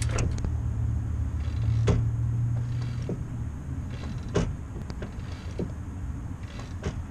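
Clutch pedal being pressed and released, with the hydraulic clutch slave cylinder and linkage creaking and clicking about once every second or so, over a steady low hum.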